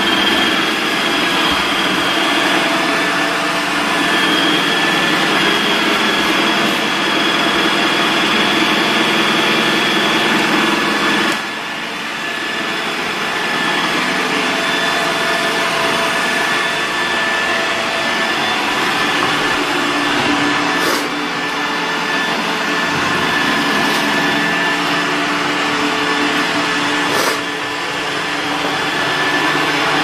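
iRobot Roomba 960 robot vacuum running as it moves across a hardwood floor: a steady vacuum motor and brush hum with a high whine over it, dipping briefly in level a few times.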